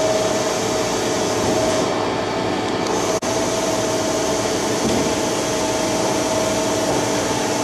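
Okuma MCR-B II double-column machining center traversing an axis at high feed rate: a steady machine whirr with a steady whine. It drops out momentarily about three seconds in.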